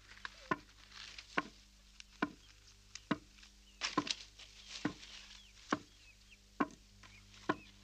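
Regular hard impact strokes, a little under one a second, with smaller knocks between them and faint high chirps in the background.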